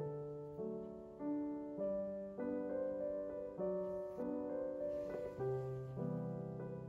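Gentle background piano music, single notes and chords struck at an unhurried pace, each fading before the next.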